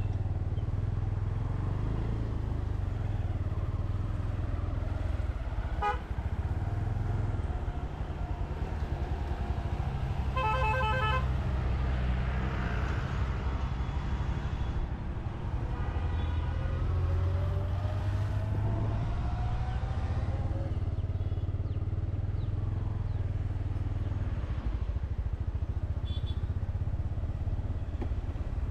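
Motorcycle riding along a mountain road, its engine and the road noise making a steady low rumble, while vehicle horns honk several times: a short toot about six seconds in, a louder honk around eleven seconds, and fainter ones later.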